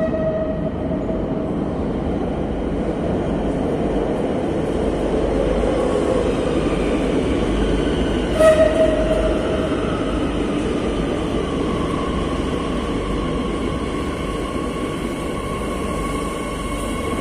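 Madrid Metro train pulling into an underground station: a steady rumble of wheels and motors, with a short horn toot about halfway through and a whine that slowly falls in pitch as the train slows.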